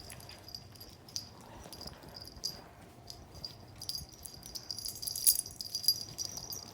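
Metal pet collar tags jingling and rattling as pets wrestle in rough play, in scattered clicks that grow busier and louder in the second half.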